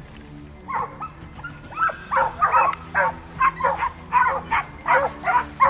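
Hunting pack dogs barking in quick, overlapping barks, starting about a second in and building to roughly two barks a second. The dogs are baying at a young wild boar.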